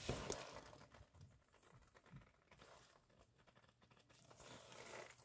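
Near silence: room tone with faint handling rustle and a light tick about a quarter of a second in.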